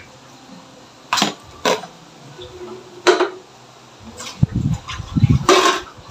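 A metal spoon and bowls clinking: four short sharp metallic strikes with brief ringing, and a low rumble of bowls being handled near the end.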